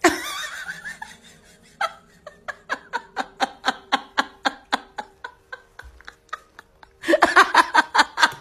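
A person laughing off camera in short, even pulses, about four a second. The laughter breaks into a louder, denser fit near the end.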